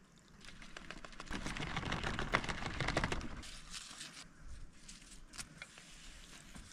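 Crinkling and rustling of a plastic transpiration bag being handled, a dense run of small crackles and clicks that builds in the first couple of seconds and thins to scattered clicks.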